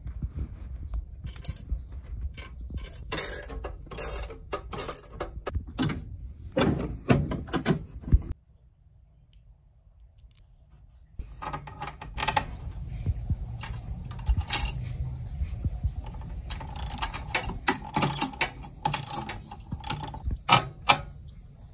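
Ratchet wrench with a 13 mm socket clicking as it runs the seat's bolts into the swivel-seat base, mixed with metal clinks of bolts, lock washers and the seat rail being handled. The clicking stops for about three seconds around eight seconds in, then resumes.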